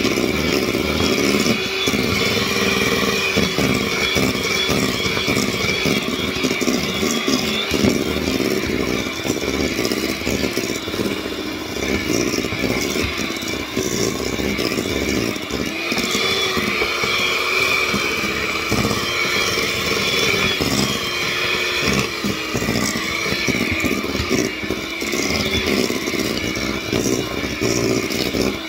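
Electric hand mixer running steadily, its beaters whirring through wet cookie-dough ingredients in a stainless steel bowl. Over the second half the motor's pitch wavers up and down as the load on the beaters shifts.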